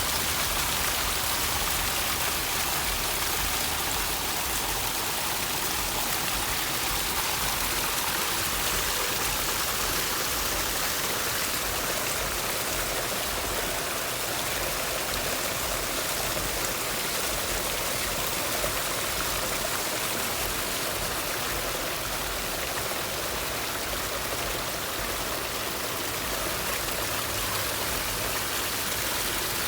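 Steady rush of running, splashing water from a garden water feature, an even hiss without breaks.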